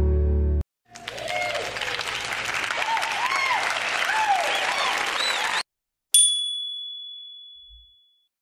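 Background music cuts off, then a burst of applause and cheering, like an outro sound effect, runs for about four and a half seconds. It stops abruptly and a single bright ding follows, ringing out over about two seconds.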